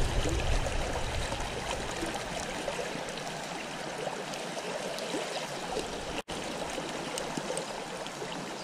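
Creek water rushing steadily over a riffle in high, muddy flow, broken by a momentary dropout about six seconds in.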